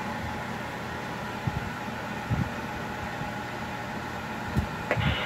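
Steady low mechanical hum, with a few soft low thumps.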